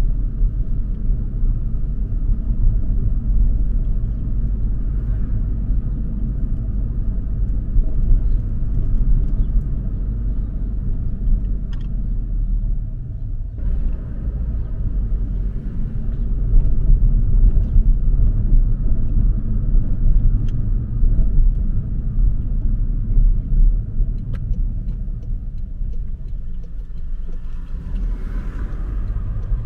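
Car driving on city streets: a steady low rumble of engine and road noise.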